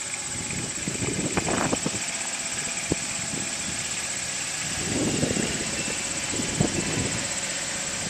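Compact farm tractor's engine running steadily as it drives along, with scattered crackles and knocks over the engine sound.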